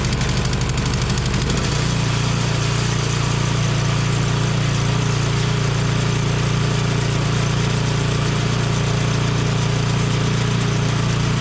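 A machine running steadily with a loud, even low hum, which grows fuller about two seconds in.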